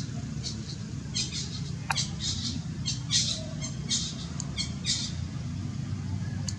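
Short high-pitched animal chirps and squeaks in quick clusters, thickest from about one to five seconds in, over a steady low rumble.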